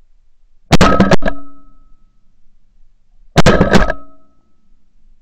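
Shotgun fired twice, about two and a half seconds apart, recorded from a camera mounted on the barrel. Each blast is followed by a quick clack and a short metallic ring that fades within about a second.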